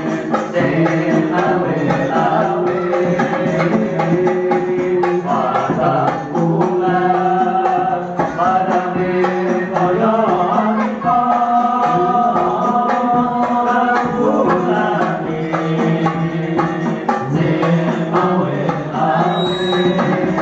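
Men's voices singing an Islamic sholawat together in long, melismatic held lines, amplified through microphones and a PA. Banjari frame drums (rebana) beat a steady, busy rhythm under the singing.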